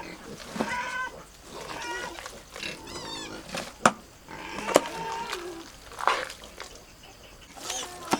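Pigs squealing and grunting in short, repeated calls, with two sharp knocks about four and five seconds in.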